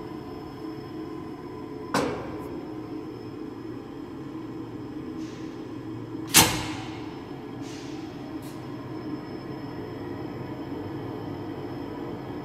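Weber CCS 302 UB industrial slicer with a steady mechanical hum, broken by two sharp metallic knocks: one about two seconds in and a louder one a little after six seconds, each ringing briefly.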